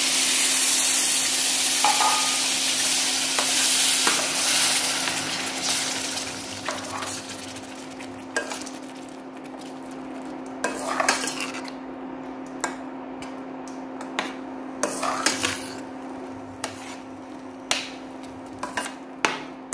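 Water poured into a hot steel pan of roasted semolina and tempering sizzles loudly, the hiss dying away over several seconds. Then a steel spatula scrapes and clinks against the pan as the semolina is stirred, over a steady hum.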